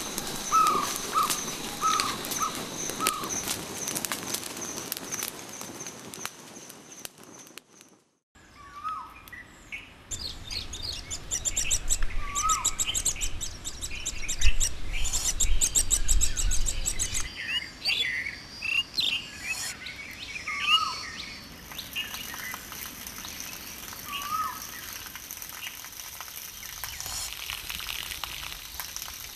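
Forest birds calling and chirping: a series of short downward-slurred calls repeated every half second or so at first, then scattered calls and rapid chirps over a steady high hiss, with a brief break about eight seconds in.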